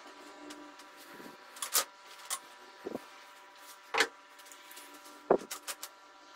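Handling knocks from assembling a metal and plastic rifle rest: about seven short, sharp clacks and taps as the parts are fitted and set down on a table, the loudest about four seconds in and just after five seconds, over a faint steady hum.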